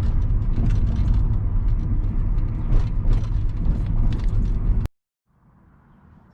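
Car driving slowly over a rough, potholed road: a steady low road rumble with frequent small knocks and rattles. It cuts off abruptly near the end, giving way to faint background noise.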